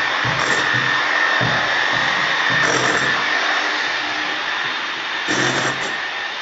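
Corded electric chipping hammer running continuously, its chisel hammering plaster and mortar off a brick wall.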